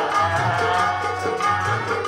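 Devotional music: tabla playing a steady rhythm under a sustained melody.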